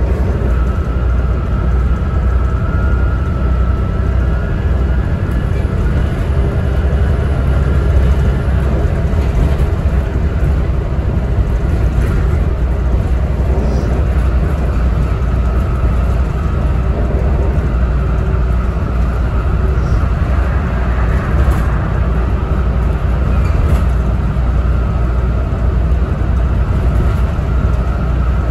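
Volvo B7TL double-decker bus under way, heard from inside: a steady low diesel engine drone with road noise and a faint high whine that wavers a little in pitch. A few short clicks or rattles come through, around the middle and again near two-thirds of the way.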